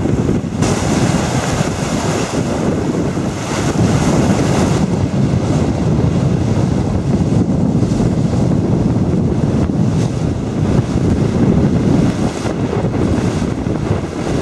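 Wind buffeting the microphone over the rush of the bow wave along the hull of a pilot cutter sailing fast. There is a sharper hiss for the first few seconds.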